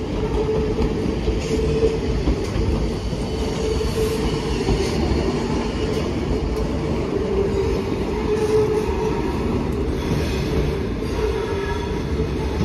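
ScotRail multiple-unit passenger train pulling out, with a steady low rumble and a steady mid-pitched hum from its running gear. About ten seconds in the sound changes to a ScotRail Class 318 electric multiple unit approaching.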